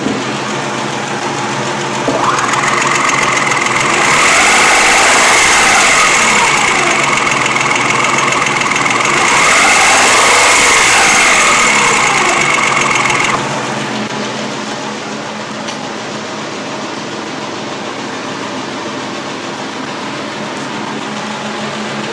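A 3-litre V6 engine idling, heard through a mechanic's stethoscope held against it: a steady, close-up running sound. About two seconds in, a louder, high whine with sweeps of rising and falling pitch comes in, and it cuts off suddenly about thirteen seconds in, leaving the plain idle.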